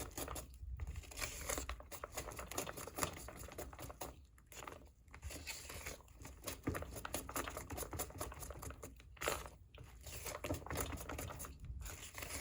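Cake batter being stirred in a bowl to work out the lumps: a fast, irregular run of small scrapes and clicks of the utensil against the bowl, broken by a few short pauses.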